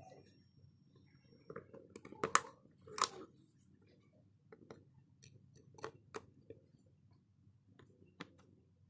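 A string of sharp small clicks and snips from small hand tools and parts being handled. Two louder clicks come about two and three seconds in, followed by lighter, irregular ticks.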